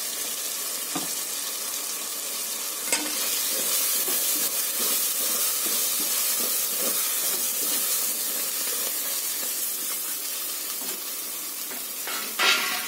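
Onion-tomato masala sizzling in hot ghee and oil in a pressure cooker, a steady frying hiss. About three seconds in there is a knock, and then the freshly added spice powders are stirred through the frying masala.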